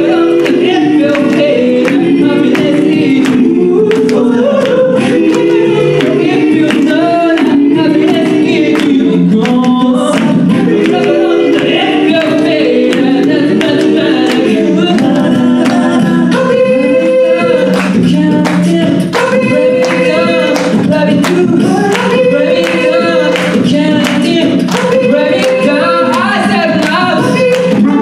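An a cappella vocal group singing an up-tempo song in several-part harmony, with a steady beat of sharp clicks running under the voices.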